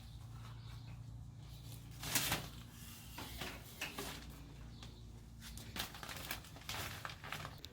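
A run of short scrapes, rustles and knocks over a low steady hum, the loudest a brief brushing scrape about two seconds in.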